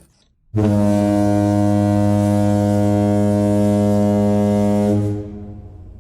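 A loud, low, steady foghorn-like horn blast, added as a sound effect. It starts about half a second in, holds one unchanging pitch for about four and a half seconds, then cuts off and fades quickly near the end.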